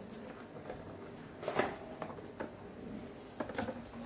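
Cardboard packaging being handled: a small Intel CPU retail box opened and its inner cardboard cooler box slid out, with light rustles and scrapes. The loudest scrape comes about one and a half seconds in.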